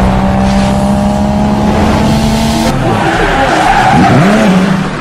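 Car sound effect: an engine holding a steady note, then a wavering squeal and skid of tyres from about three seconds in, beginning to fade near the end.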